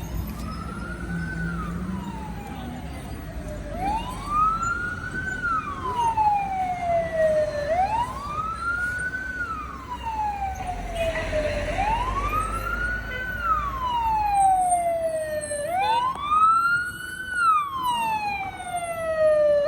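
A small fire engine's siren wailing. The pitch rises quickly and falls slowly, repeating about every four seconds.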